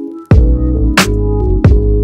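Electronic background music with a steady drum-machine beat about every two-thirds of a second over held bass notes. It cuts out briefly at the start, then comes back in on the beat.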